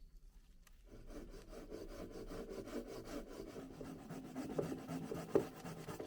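Something scraping on wood in quick, even strokes, starting about a second in, with a couple of louder knocks near the end.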